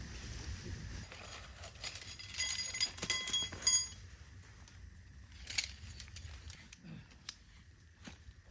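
Small hard objects clink and jingle with a metallic ring for about a second and a half near the middle, then a few separate clicks and knocks. A low rumble, like wind on the microphone, sits under the first half.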